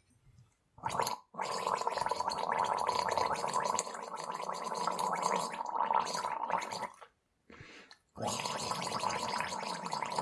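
A person gargling liquid in the throat: a short gurgle about a second in, then a long gargle lasting about five and a half seconds, and after a brief pause another long gargle near the end.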